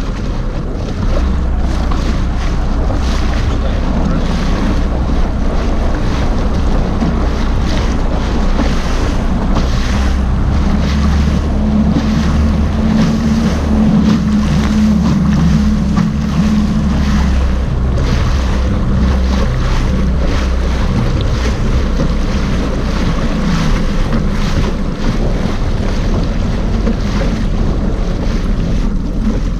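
Personal watercraft's engine running at low speed with a steady low hum, with water splashing against the hull and wind buffeting the microphone. The hum grows a little stronger for a few seconds about halfway through.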